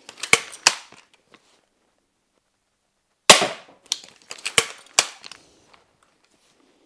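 Steambow Stinger pump-action crossbow at 120 lb draw weight fired once about three seconds in: a sharp snap with a short ringing decay. Before and after the shot come quick sharp mechanical clicks as the fore-end is worked to re-cock it.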